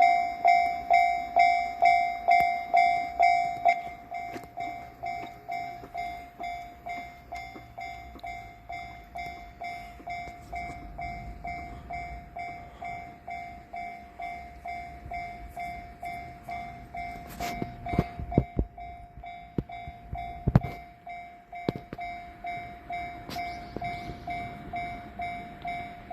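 Japanese level-crossing warning bell ringing steadily, a little under twice a second, dropping in level about four seconds in. Partway through, the 485-series electric train runs over the crossing, its wheels knocking over the rail joints, loudest about two-thirds of the way through.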